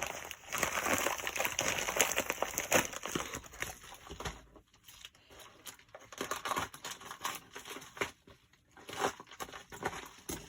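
A mailed package being torn open and its packaging crinkled and rustled, a busy run of crackling rustles that pauses briefly twice.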